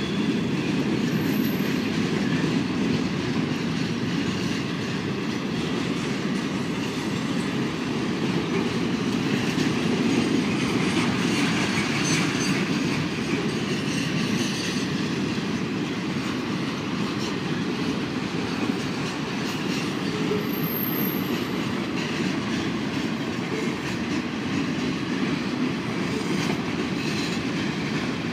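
Boxcars of a long freight train rolling steadily past, the even noise of steel wheels running over the rails.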